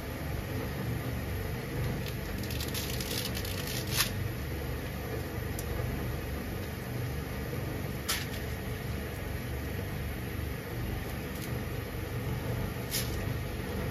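Water at a rolling boil in a frying pan on a gas burner, a steady low bubbling rumble. A short crackling patter comes a few seconds in as salt is sprinkled into the water, and three sharp clicks are spread through the rest.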